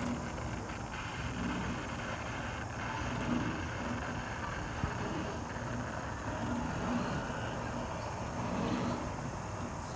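Steady rushing ride noise from an open chairlift seat in motion along its cable, with wind buffeting the phone microphone.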